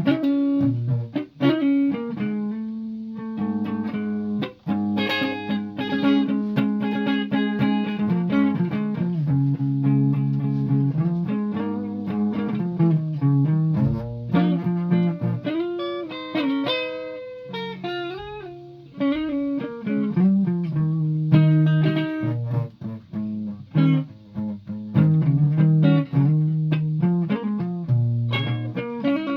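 Guitar being played note by note, plucked single notes and held low notes in an uneven, practising pace.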